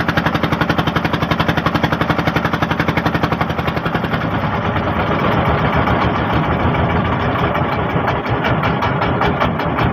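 A motorboat's engine running with rapid, even thuds, about ten a second. About four seconds in it turns rougher and noisier.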